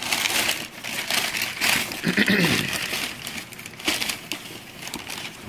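Packing paper and cardboard box flaps rustling and crinkling as they are pulled back by hand, with many small crackles.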